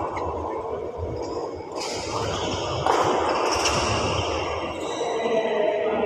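Badminton rally: racket strings striking the shuttlecock about three times, sharp hits ringing in a large echoing hall over a steady background din.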